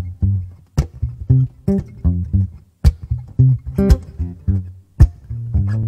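Acoustic guitar played percussively, with sharp hits cutting between short low bass notes in a steady rhythm. It ends on a held low note near the end.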